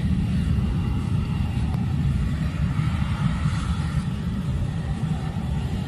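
Cessna Citation business jet's twin rear-mounted turbofans running as it taxis on the runway: a steady low rumble with a faint engine hum above it.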